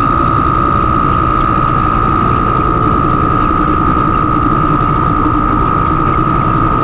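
Electronic soundscape composition: a dense, rattling mechanical drone with a steady high tone held over it.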